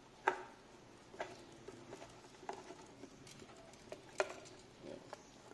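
Light plastic clicks and knocks from a hand-held plastic soap bottle being turned and handled, about half a dozen separate taps spread out, the sharpest just after the start and another about four seconds in.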